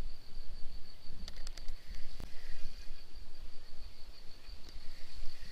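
A steady, high-pitched insect drone over a low, uneven rumble on the microphone, with a few short clicks about a second and a half in and a single knock soon after.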